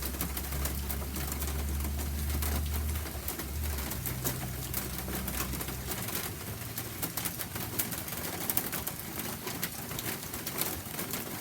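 Rain falling, a steady hiss scattered with many sharp drop ticks. A low steady tone sounds under it and stops about six seconds in.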